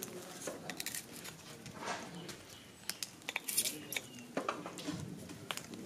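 Scattered light clicks and taps from hand work on green atom bomb firecrackers: a pointed tool worked into the cracker casings and blue fuse sticks being handled.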